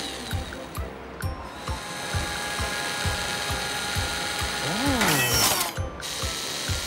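Cartoon robotic-arm sound effects: regular mechanical clicking, about three a second, as the claw moves in. Just before five seconds in, a whirring pitch rises and falls, then a burst of hiss runs for about a second as the engine part is fitted to the motorcycle frame.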